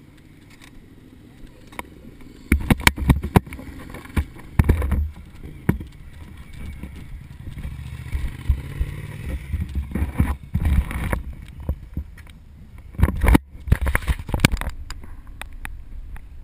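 Handling noise from a GoPro action camera: clusters of knocks and rubbing on the camera housing, with low wind rumble on the microphone, in three spells.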